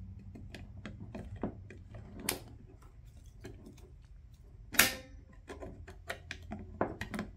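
Scattered clicks and taps of hard 3D-printed plastic parts being handled and fitted together as a feed wheel is seated in the sorter housing, with one sharper clack a little before five seconds in.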